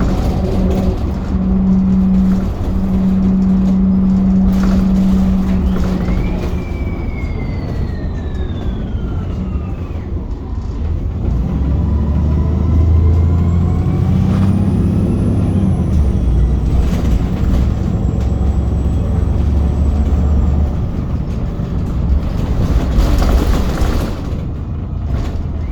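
VDL Pulsar single-deck bus under way, its differential whining over the engine and road noise. The whine falls in pitch for a few seconds, then rises again higher up and levels off. Near the end comes a short burst of air hiss.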